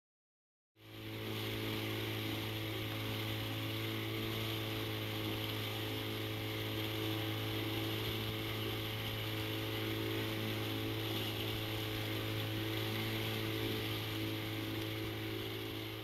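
Motorboat engine running at a steady hum, with water rushing and splashing past the hull. It fades in about a second in, after a brief silence.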